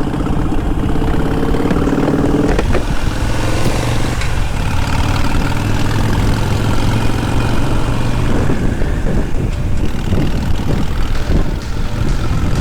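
Harley-Davidson V-twin motorcycle engine running under way on the road, its pitch rising a little over the first couple of seconds and then holding steady, with wind buffeting the microphone.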